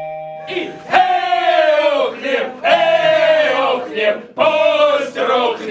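A group of stage actors' voices shouting together in chorus, in three long, loud, drawn-out phrases.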